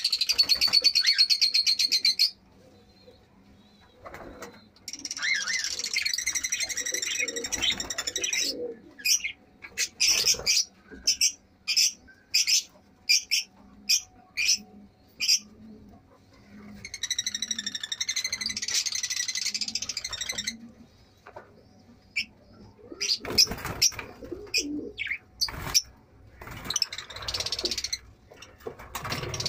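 Caged aviary birds, lovebirds among them, chattering in long bursts of shrill, buzzy chirps, with a run of sharp single calls about one a second in the middle. A low cooing at about two notes a second sits under that middle stretch.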